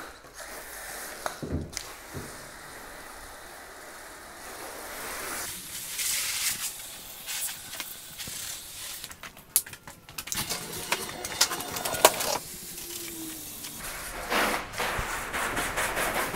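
Hose spray nozzle rinsing soap off a car, the water spray coming in spells that start and stop, with a few sharp clicks and knocks between them.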